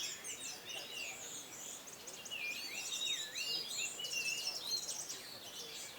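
Orange-headed thrushes singing, with varied whistled phrases and quick up-and-down pitch sweeps from several birds overlapping.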